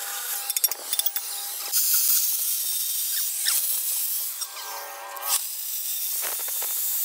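Angle grinder with a cutting disc cutting through thick steel plate: a harsh, hissing grind with a faint steady whine, loudest from about two seconds in and easing a little after about five seconds. A few sharp clicks sound in the first second.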